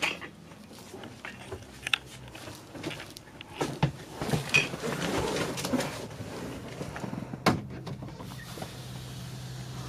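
Scattered knocks, clicks and rustling handling sounds as someone moves through a bus cabin, with a cluster of thuds about four to six seconds in and a sharp knock near the end; a low steady hum comes in from about four seconds on.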